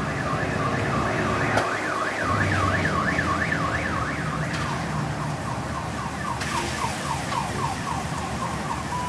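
Electronic siren sweeping rapidly up and down in pitch, about four times a second. About halfway through it switches to a run of short falling sweeps, and it ends on a brief steady tone.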